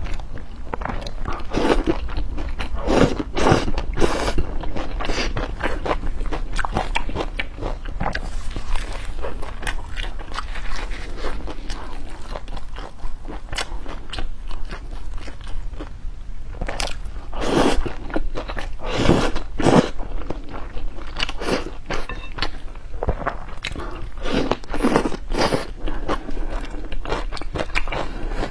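A person biting and chewing food, a run of crunchy bites and chews with louder clusters a few seconds in, in the middle and near the end.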